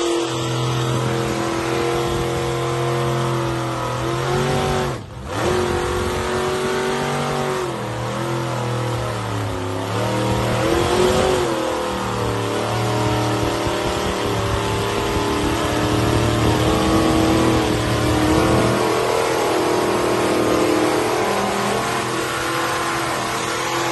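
Truck engines running hard and revving under load as trucks pull against each other in a tug of war. The pitch rises and falls, with a brief drop about five seconds in.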